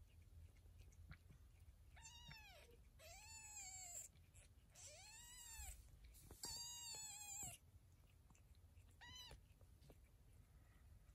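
Newborn kitten mewing: five thin, high-pitched mews that rise and fall, four close together in the first half and a short last one a couple of seconds later.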